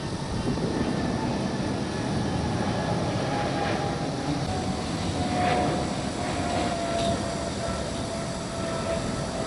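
Jet engines of an EVA Air Cargo Boeing 777F freighter climbing out after takeoff: a steady loud rumble and roar, with a tone in it that slowly sinks in pitch in the second half.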